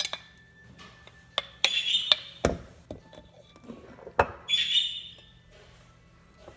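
A metal spoon clinking and scraping against a glass mason jar, with a few sharp clicks and two heavier knocks as the jar is handled and set down on the counter.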